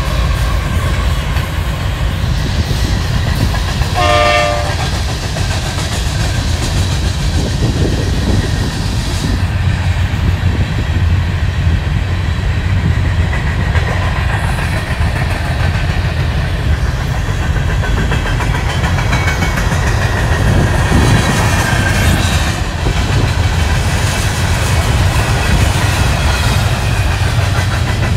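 A long Union Pacific train of coal hopper cars rolling past, its wheels making a steady rumble on the rails. A short horn blast sounds about four seconds in.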